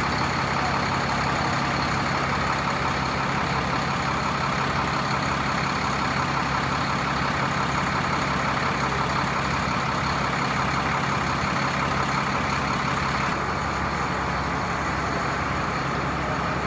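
A large bus engine idling, a steady, even hum that changes little, becoming slightly duller for the last few seconds.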